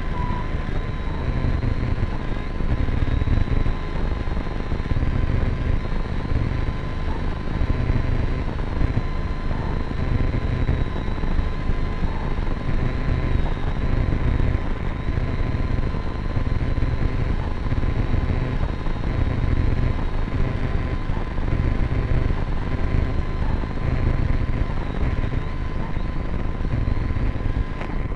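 Small camera drone's motors and propellers whirring steadily, a high whine held over a fluttering low rumble of air buffeting its onboard microphone.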